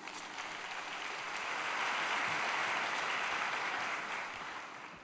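Audience applauding, swelling to its loudest about halfway through and dying away near the end.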